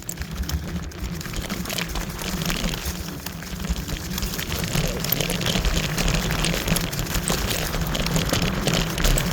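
Kaabo Wolf Warrior electric scooter riding over a rough dirt trail: steady wind rumble on the microphone, with tyres crackling and ticking over loose stones.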